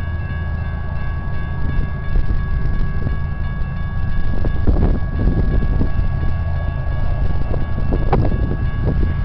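Diesel locomotives of an approaching BNSF freight train, heard as a steady low engine rumble. A steady high-pitched tone sits over it and stops near the end.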